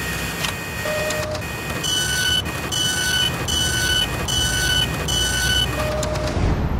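Machine sound effects for an animated logo: a steady mechanical whir with a few sharp clicks and short tones, and in the middle five short two-tone beeps about two-thirds of a second apart.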